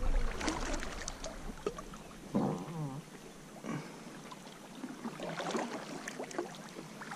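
Kayak paddle dipping and dripping, with water lapping lightly against the plastic hull in small scattered splashes. A low microphone rumble fades out after about two seconds, and a brief pitched call sounds about two and a half seconds in.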